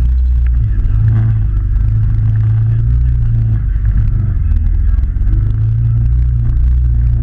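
Can-Am Maverick side-by-side's engine running at low revs, its drone swelling and easing off as the throttle changes, with a knock about a second in as the vehicle jolts over the rough trail.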